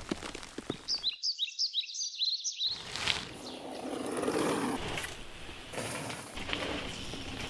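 Outdoor nature ambience with birds chirping: about a second in, a quick run of short rising chirps lasts about a second and a half while the lower background drops away.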